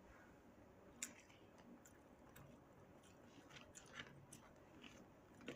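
Faint chewing and wet mouth clicks of someone eating, with scattered small clicks, the sharpest about a second in and near the end.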